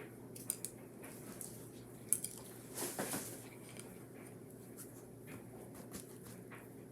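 Light clicks and taps of painting supplies being handled at a table, with a short hiss about three seconds in.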